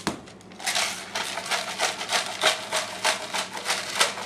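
Disposable pepper grinder being twisted by hand, peppercorns cracking in a fast run of crisp grinding clicks that starts just after the opening and stops shortly before the end.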